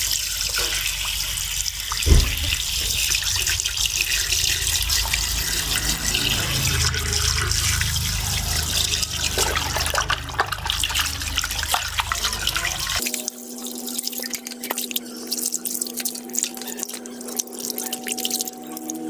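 Running water from a hose pours into a steel bowl and splashes as hands wash and scrub a large raw octopus, with a knock about two seconds in. Near the end, background music with steady held notes comes in under the splashing.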